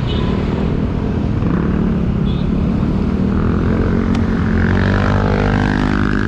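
Motor traffic running close by on a busy road, steady and loud. About four and a half seconds in, one engine rises in pitch as it speeds up.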